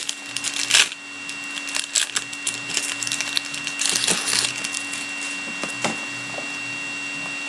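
Foil hockey card pack crinkling as it is torn open, with the cards inside clicking and rustling as they are handled, for about the first five seconds. After that only a steady low hum and a faint high tone remain.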